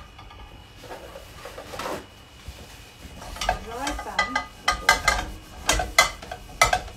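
Metal cooking pots and pans being shifted on a gas hob's grates: quiet for the first few seconds, then a run of sharp clanks with a brief metallic ring and some scraping, about halfway through and on to the end.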